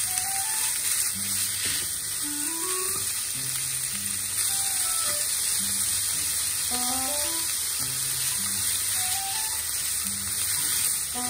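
Sliced pork sizzling steadily in a hot nonstick frying pan as it is stirred and separated with wooden chopsticks; green pepper strips go in with it, and the sizzle brightens about four seconds in. A light background music melody plays over it.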